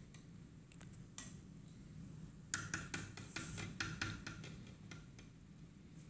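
Metal spoon clinking and tapping against a plastic cup while stirring a drink, in a string of light, irregular clicks that come thickest about halfway through.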